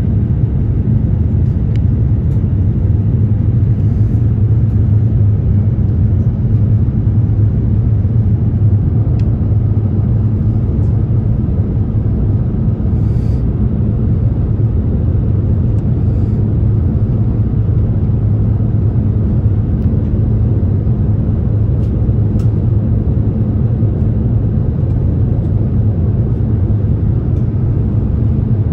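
Cabin noise inside an Airbus A350-900 airliner on approach: a steady low rumble of engines and rushing air, with no change in level.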